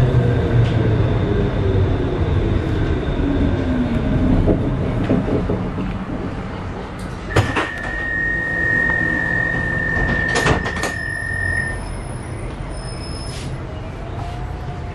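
Pesa Swing 122NaSF tram's traction drive whining down in pitch as the tram slows to a stop, over a steady low rumble. About halfway through, a sharp click is followed by a steady high beep lasting about four seconds and a second click.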